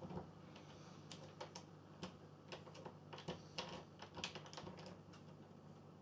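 Faint, irregular metallic clicks and scratches of a lock pick and tension wrench working inside a door's cylinder lock, as the pick is raked and probed against the pins.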